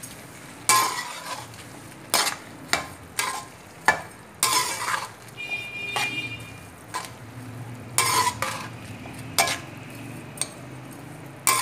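A slotted metal spoon scraping and knocking against a metal cooking pot as sevaiyan (vermicelli) in water is stirred to mix in freshly added sugar. Irregular scrapes and clinks come about every second or so.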